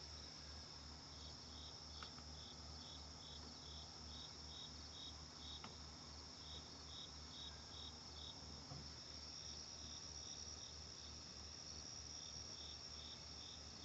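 Crickets chirping faintly: a steady high trill with a regular pulsed chirp about three times a second.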